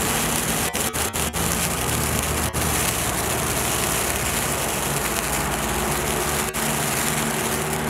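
Standard Fireworks Ghosa fountain, a ground firework, burning with a steady loud hiss of spraying sparks.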